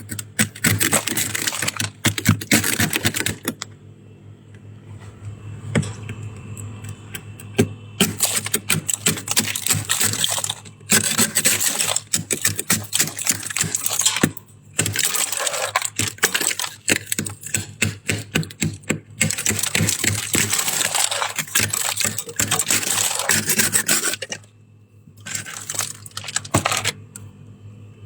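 Soft, crispy shaved ice (freezer frost) being crunched and chewed close to the microphone: a dense crackle in long bouts. There is a quieter stretch from about four to eight seconds in and short pauses near the end.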